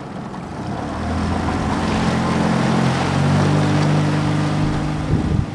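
Small outboard motor on an inflatable dinghy running under way, its pitch and loudness climbing as it speeds up, then holding steady over a rush of wind and water. It cuts off shortly before the end.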